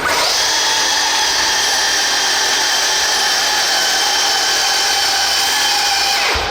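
Electric drive motors of an RC pulling vehicle whining at full power through a pull. The pitch holds steady, sags slightly, then cuts off suddenly near the end.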